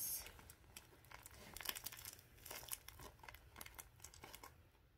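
Paper crinkling and rustling in the hands as a white paper squishy is handled and unwrapped: a run of faint, irregular crackles that thin out near the end.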